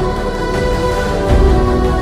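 Background music: sustained chords over a low bass that swells about a second and a half in.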